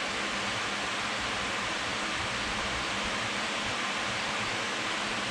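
Steady rushing noise of a fan running, its air blowing across the microphone.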